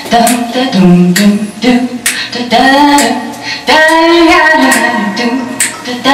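A woman singing unaccompanied into a microphone, holding notes that slide up and down in pitch, with sharp hissing consonants between phrases.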